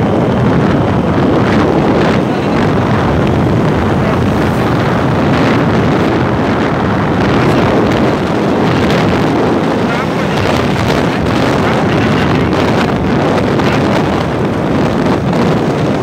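Steady, loud rush of wind buffeting the microphone on a vehicle moving along a road, with the vehicle's running noise mixed in.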